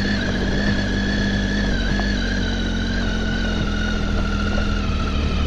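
Triumph Tiger XC motorcycle's three-cylinder engine running steadily at low speed, its pitch holding even with no revving.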